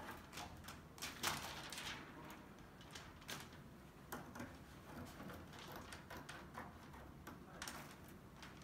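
Faint, scattered scrapes and taps of a knife cutting and working plastic smart film on a glass door around a metal door bracket. The loudest is a short scrape about a second in.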